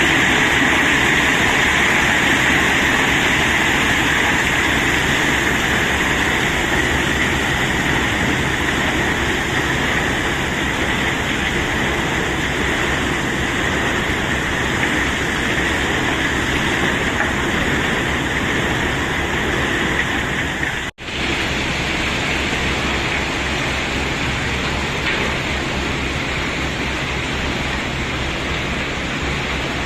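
A continuous, dense rattling rush of cobblestones sliding and pouring off a tipping load, steady and loud throughout. It cuts out for an instant about two-thirds of the way through, then carries on.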